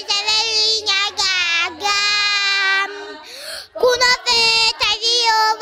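A young girl singing, drawing out long held notes with a slight waver, with a quick breath about three seconds in.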